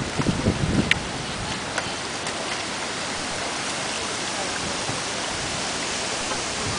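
Steady rushing hiss of fast-flowing floodwater, with some low rumbling in the first second or two.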